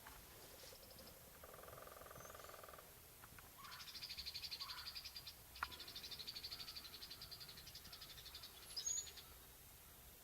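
Faint bird trills in the woods. A lower pulsed trill comes about a second and a half in, then rapid high trills run for about five seconds, with a single sharp click midway and a short high chirp near the end.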